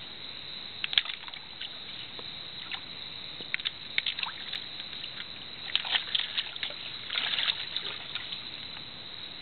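Water splashing and sloshing as Nile softshell turtles surface and lunge at food at the edge of a rock. There are short bursts of sharp splashes about one, four, six and seven seconds in, over a steady hiss.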